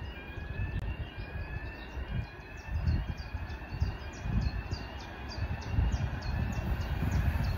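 Low rumble of an ER9Tm electric multiple unit approaching from far down the line. A high rising chirp repeats at an even pace over it.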